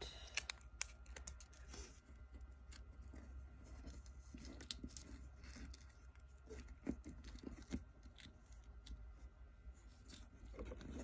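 Faint, scattered crinkles and ticks of a small taped paper strip being rolled between the fingers into a tiny paper straw.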